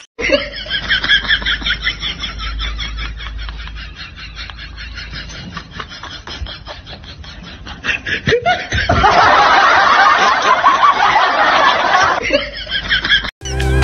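People laughing: a long stretch of quick, rhythmic snickering, then a louder burst of laughter starting about nine seconds in and dropping away about three seconds later.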